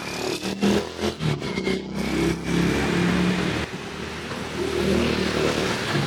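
Street traffic: a nearby motor vehicle engine revving and running, its pitch shifting up and down.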